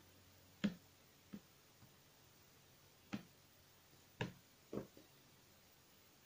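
About five faint, irregular taps on an iPad's glass screen while making selections on the touchscreen.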